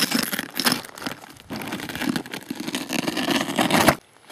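Close, gritty scraping and rustling of a hand moving over rough lava rock and loose cinders, swelling and fading irregularly, then cutting off abruptly about four seconds in.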